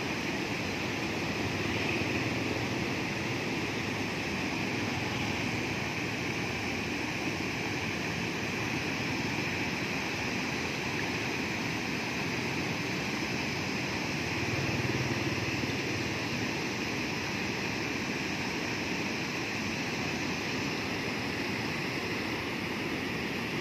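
Water pouring over a low weir spillway and churning over the rocks below: a steady rushing noise.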